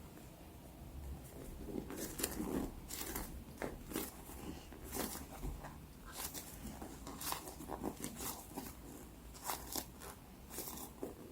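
Fidget toys and their plastic packaging being handled: irregular rustles, taps and clicks, a few every second.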